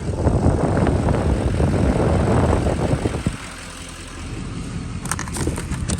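Vehicle engine running loudly with a dense rumble, dropping to a quieter steady running level a little over three seconds in.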